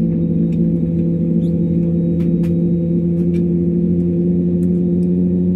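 Steady hum of an airliner heard from inside the cabin while it sits or taxis on the ground, its jet engines idling, with several steady droning tones and no rise in pitch.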